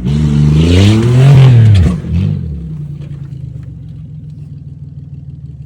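V8 engine revved hard, its pitch climbing for over a second and then dropping, with a short second blip of the throttle, before settling into a steady idle.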